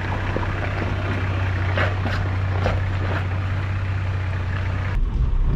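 Four-wheel-drive engine running with a steady low drone as the vehicle drives a rough bush track, with a few short knocks and rattles over the bumps.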